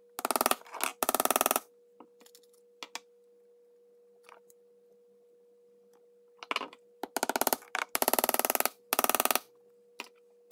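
Hammer tapping in the small nails of a sawtooth picture hanger held in needle-nose pliers, in quick runs of rapid taps: two short runs at the start and four more from about six and a half to nine and a half seconds in.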